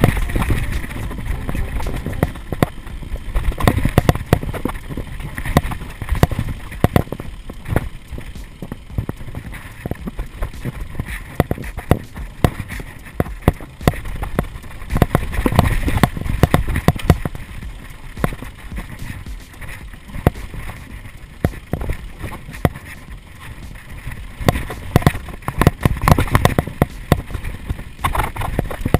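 Mountain bike descending a dirt trail at speed: tyres rumbling over dirt and roots, with the bike rattling and clattering irregularly over bumps, and wind buffeting the camera microphone.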